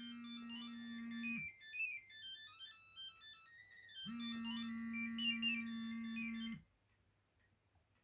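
Sendo S330 mobile phone playing its polyphonic ringtone for an incoming call: a fast melody of short high notes over a held low note, coming in two phrases. It cuts off suddenly about six and a half seconds in as the call goes unanswered.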